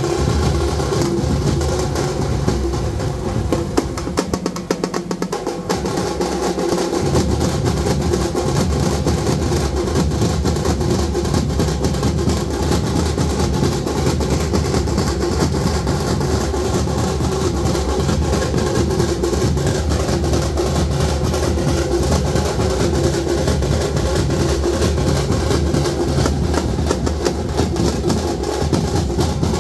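A thappattam drum troupe: many thappu frame drums struck with sticks in a fast, dense, unbroken rhythm, driven by a large bass drum. The bass drum drops out briefly about four seconds in while the frame drums play a fast roll, then comes back in.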